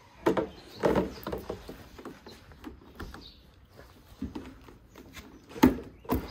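Knocks and clatter of rigid plastic frame pieces being handled during assembly, with the sharpest, loudest knock near the end.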